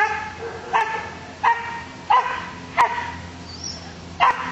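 Malinois-cross dog barking repeatedly, about one bark every 0.7 seconds, with a short pause after the fifth bark.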